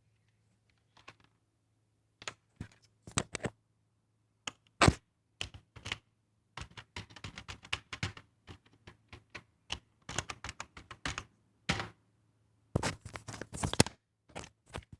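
Typing: short keystroke clicks in quick irregular runs with pauses between them, as a username and email are entered, over a faint steady low hum.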